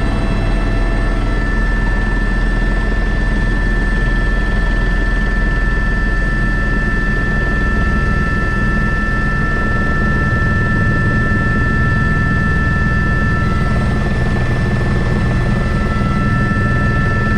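Airbus H125 helicopter running steadily in flight, heard from on board: the single turbine's steady high whine over the low drone and beat of the rotor.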